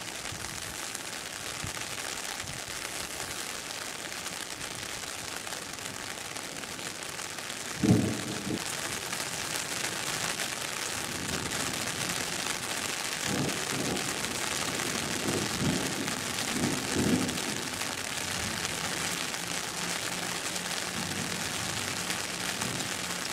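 Steady hiss of rain falling. A single loud thump about eight seconds in, and a few short low knocks a few seconds later.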